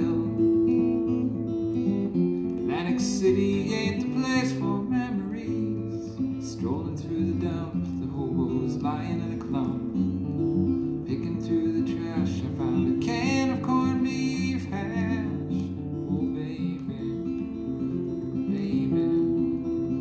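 Instrumental break of a folk-style song: strummed acoustic guitar over a moving bass line, with a wavering lead line above at times. It is played from a test LP through a pair of vintage Advent 3 loudspeakers and heard in the room.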